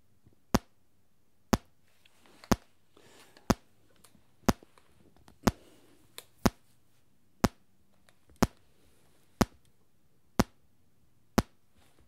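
Square-wave test pulses from a small speaker, one sharp click about every second, picked up through the Sennheiser MD441 for a pulse-response check; each has a low-end pop, like a poof.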